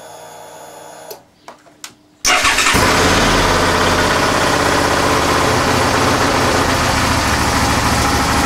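Suzuki DL650 V-Strom's V-twin engine being started after its oil change: a few clicks, then the engine catches a little over two seconds in and settles into a steady idle, run to circulate the freshly filled oil.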